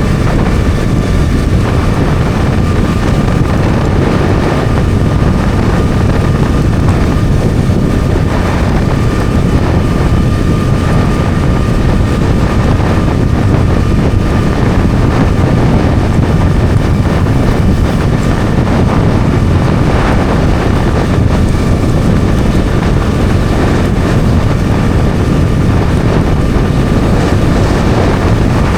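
Bajaj Dominar 400's single-cylinder engine running steadily as the motorcycle cruises at an even speed, mixed with wind on the microphone.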